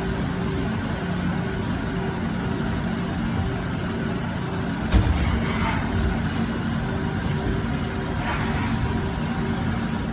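Steady mechanical hum of a Haas ST-20 CNC lathe running, with a single knock about five seconds in.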